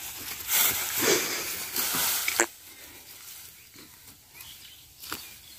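Dry rice straw rustling and crackling as a large head-carried bundle brushes past close by, loudest in the first two and a half seconds, then fading to a faint rustle with a sharp click near the end.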